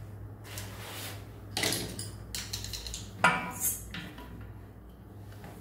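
A few short metallic clinks and knocks as a pipe wrench is set on the nut of a braided flexible supply hose at a toilet's fill-valve inlet, the sharpest a little after three seconds in, over a faint steady low hum.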